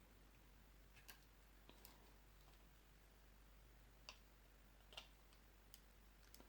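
Near silence broken by a handful of faint, scattered clicks as a plastic vinyl figure and its display stand are handled.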